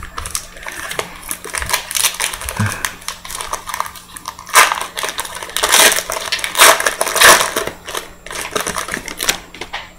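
Crinkling and rustling of a trading card pack wrapper handled and opened by hand, with irregular crackles that are loudest in the middle.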